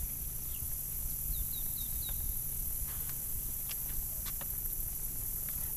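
Outdoor ambience on open water: a steady low rumble, a small bird chirping four quick notes about one and a half seconds in, and a few sharp clicks a little after the middle.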